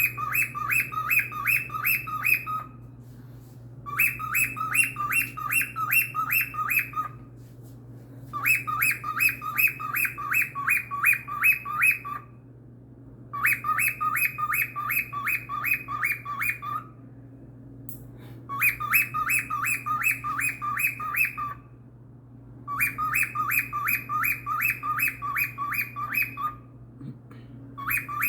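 Cockatiel calling in bursts of quick, evenly repeated chirps, each burst lasting about three seconds, broken by pauses of one to two seconds. A steady low hum runs underneath.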